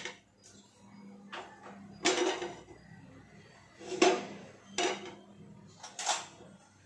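Metal kitchenware knocking and clinking about five times, the loudest knock about four seconds in, as a dosa griddle is lifted and set back on a gas stove burner and utensils are handled.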